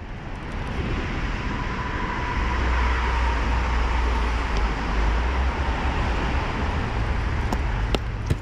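Honda CBR1000RR sportbike's inline-four engine running under way, with a steady rush of wind and road noise that builds over the first second and then holds; a few light ticks near the end.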